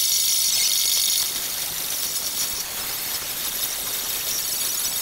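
Hand grinder grinding the welds on a motorcycle exhaust pipe smooth: a steady, high-pitched whine with hiss, easing slightly about a second in.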